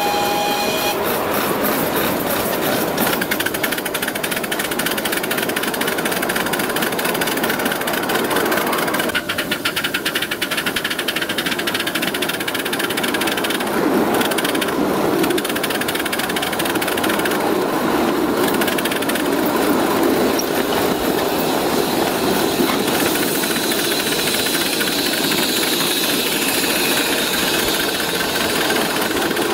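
5-inch gauge live steam locomotive running along a miniature railway track, heard close up from on board as a steady, noisy running sound from the engine and wheels on the rails.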